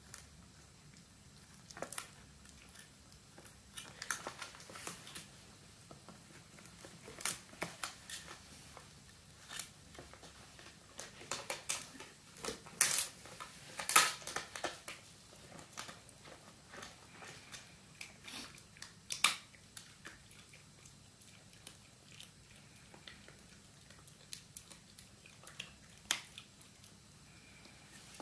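Italian greyhound puppy gnawing and chewing a pig ear chew: irregular sharp crunches and cracks, busiest in the first half and sparser later on.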